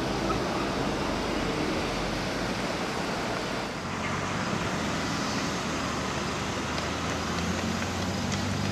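Steady roadside noise: an even hiss, like wind and passing traffic, with a low engine-like hum that grows stronger near the end.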